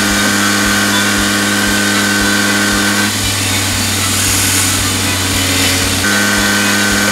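Palmgren belt grinder running with a steady motor hum. About three seconds in, a steel axe head is pressed against the belt and the hum gives way to a rougher grinding noise for about three seconds, then the plain hum returns.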